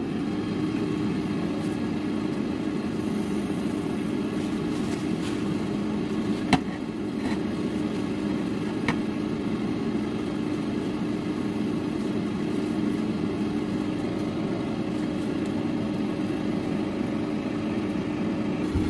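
Ninja air fryer running: a steady fan hum with a low steady tone. A few short sharp clicks come near the middle.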